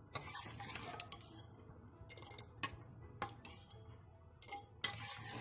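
Steel ladle knocking and clinking against the sides of a steel pressure-cooker pot as thick milk porridge is stirred and scooped: about half a dozen sharp clinks at uneven intervals, the loudest near the end.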